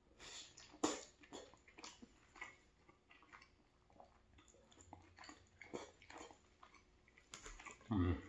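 Close-miked chewing of a mouthful of pulled pork and vegetable stew: soft wet smacks and clicks, a few every second, with a brief hum of the voice near the end.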